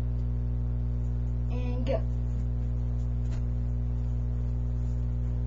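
Steady electrical hum: a low, unchanging buzz with a stack of overtones, picked up by a webcam microphone. A brief pitched squeak sounds about two seconds in, and a faint tick a little after three seconds.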